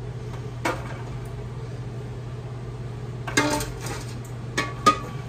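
Glass quart canning jars being set down into a pressure canner, knocking against the metal rack and each other: a single knock about a second in, a clatter past the middle, and two more near the end, the last ringing briefly. A steady low hum runs underneath.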